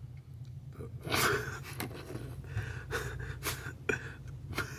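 A man breathing hard in short gasps and pants, over a steady low hum.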